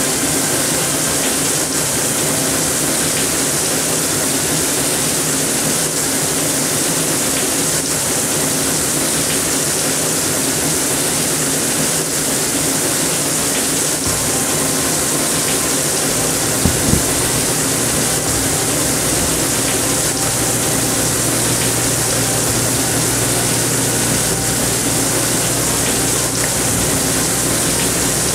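Steady rushing, hissing water in a tub holding live crayfish, aerated by an aquarium air pump. About two-thirds of the way through there is a brief knock, after which a low hum joins in.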